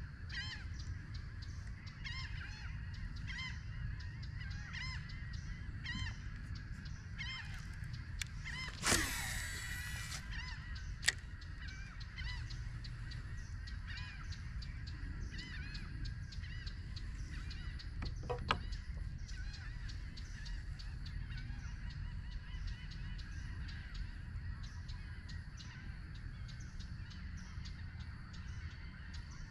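Birds giving short calls over and over, above a steady low rumble. About nine seconds in comes a brief, loud rushing sound, and a sharp click follows about two seconds later.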